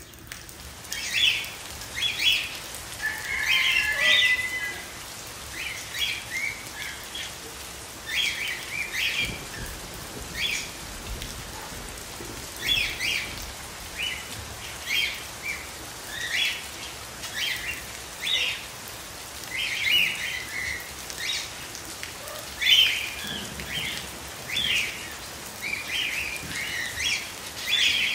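Steady rain falling, with short, high bird chirps repeating every second or two throughout.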